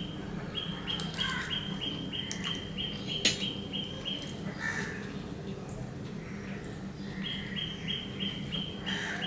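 A small bird chirping over and over at a steady pitch, about three chirps a second, in two runs with a pause between. One sharp clink of a spoon on a steel bowl about three seconds in.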